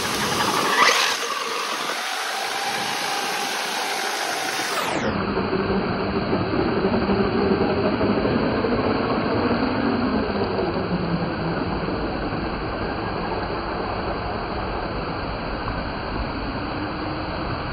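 Radio-controlled Baja Bug car's electric motor whirring as it drives, revving up briefly about a second in, then splashing through shallow water. Under it runs the steady rush of water pouring down the fountain walls.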